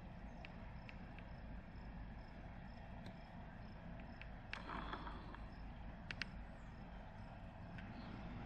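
Faint steady low rumble with insects chirping over it, and a few sharp clicks about halfway through.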